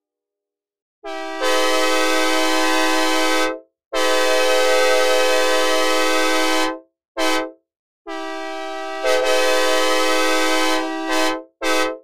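Synthesized recreation of a Nathan K5LA five-chime train horn, dry with no reverb and no Doppler shift. It sounds two long blasts, a short blast, another long blast, then two quick short toots. At the start of the first and last long blasts, some of the chimes come in a moment before the rest.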